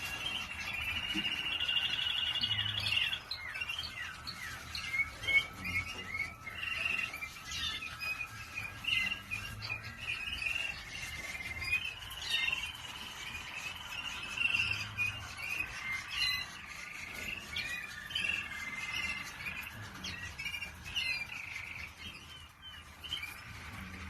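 Waterslager canary singing: a continuous song of rapid rolling trills and short chirped notes.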